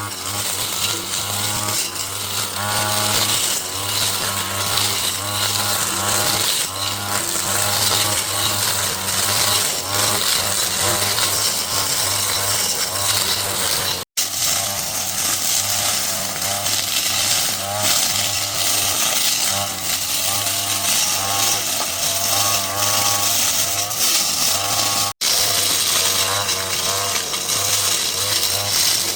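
Small two-stroke engine of a handheld garden power tool running steadily, its pitch wavering as the load changes while cutting. The sound drops out abruptly twice, about halfway through and again near the end.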